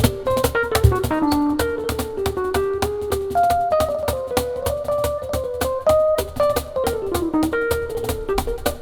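Piano and percussion duo playing an instrumental MPB/jazz piece: a quick winding melody over a busy run of percussion strokes.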